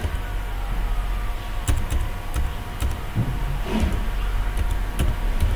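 A few scattered computer keyboard key clicks, single strokes with pauses between them, over a steady low background hum.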